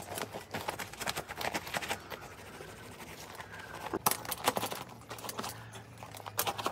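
Cloth scrubbing over a fabric gym bag to rub off dust and paint spots: short, irregular rubbing and scraping strokes, busiest at the start, with a few stronger scrapes about four seconds in and again near the end.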